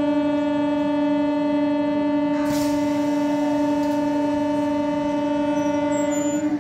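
MEMU electric train's horn sounding one long, steady blast, a single pitched tone that cuts off near the end.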